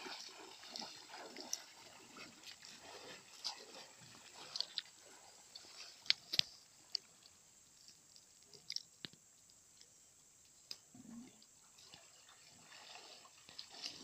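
Footsteps wading and splashing through shallow river water, fading as the wader moves away, with scattered sharp clicks, a cluster of them about six seconds in.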